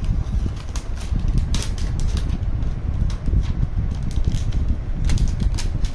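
Clear plastic protective film on a new laptop crinkling and crackling as fingers handle and peel at it, a string of short irregular crackles over a steady low rumble.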